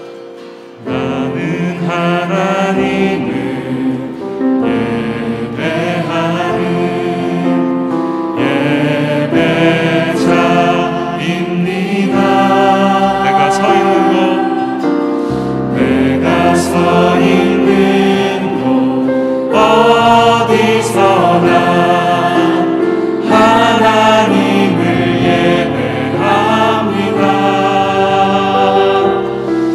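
A praise band and choir performing a Korean contemporary worship song, with sung lines over band accompaniment; the full band and voices come in about a second in.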